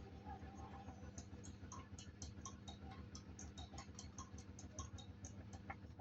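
Samsung washing machine running a cotton wash: a faint steady hum with a rhythmic low churning, overlaid from about a second in by light, quick ticking at roughly four to five clicks a second.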